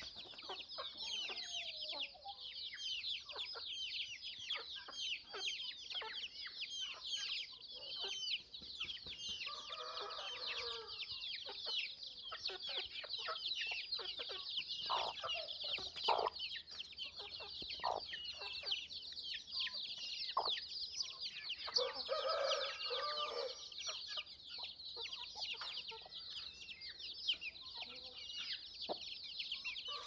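A brood of country chicken chicks peeping without a break, a dense stream of short, high chirps that each drop in pitch. A mother hen clucks low among them in short bouts, about a third of the way in, again about three quarters of the way in, and at the very end.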